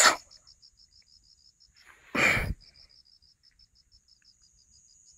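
Field crickets chirping in a fast, even pulse of several chirps a second over a steady high insect trill, with one short loud burst of noise about two seconds in.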